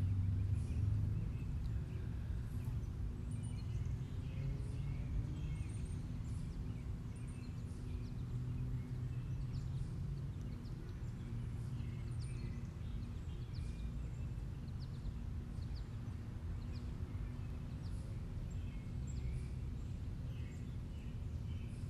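Outdoor ambience: a steady low rumble with faint, scattered bird chirps throughout.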